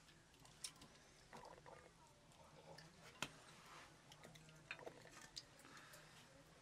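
Near silence, broken by a few faint clicks and taps, the sharpest a little past halfway, as chopped ingredients are handled in small clay bowls and dropped into a clay pot.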